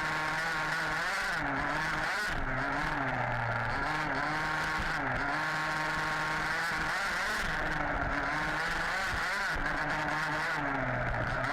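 Small two-stroke petrol engines of 1/5-scale RC off-road buggies racing, revving up and down over and over as they accelerate and back off.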